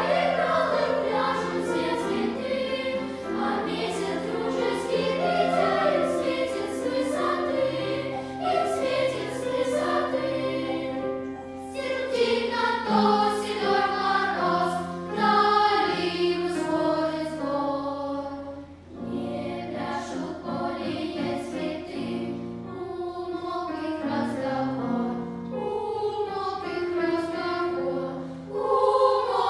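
Children's choir singing in several parts, with long held notes.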